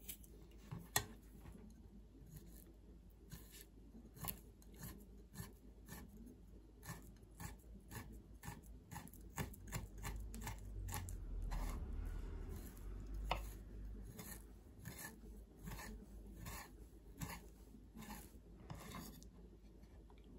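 Paring knife cutting and peeling the skin off a thick aloe leaf on a wooden cutting board: a quiet, irregular run of sharp clicks and taps as the blade meets the leaf and the board. A low rumble comes up around the middle and fades a few seconds later.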